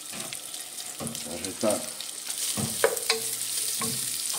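Diced bacon sizzling as it renders its fat in a pot on the stove, with a few sharp clicks of a utensil stirring against the pot.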